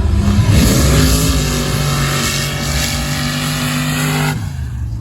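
Diesel drag-racing vehicle's engine running hard under full throttle with a loud hiss over it, then cutting off abruptly near the end.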